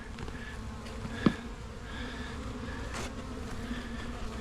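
Honeybees buzzing steadily close to the microphone around an open hive, with one sharp click a little over a second in.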